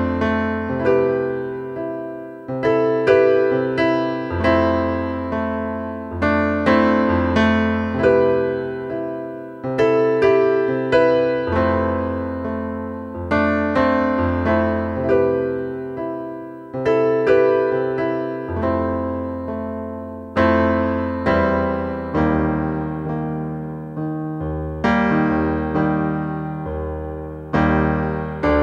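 Solo piano instrumental: chords struck about once a second over low bass notes, each left to ring and fade.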